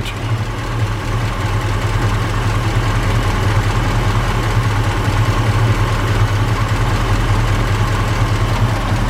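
1963 Chevy C30 pickup's engine idling steadily, with a light valve noise and no clunk or knock coming through.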